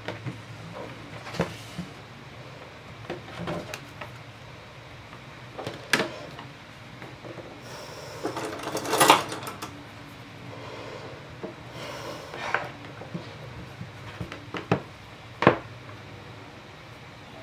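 Scattered light taps and knocks on a tabletop, with a couple of brief rustles near the middle, from hands handling a cold porcelain flower bud and small tools.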